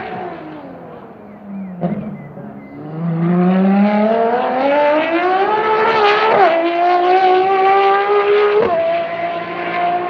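Ferrari FXX K's V12 engine on track. Its note falls away at first, then climbs under hard acceleration for about three seconds, drops sharply at an upshift about six and a half seconds in, and steps up in pitch again near the end.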